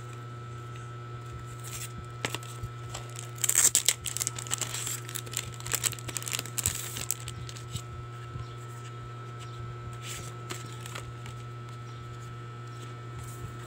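Clear plastic wrap being torn and peeled off a photobook, crinkling in a flurry from about three to seven seconds in, loudest near its start, then a few light handling clicks. A steady low hum runs underneath.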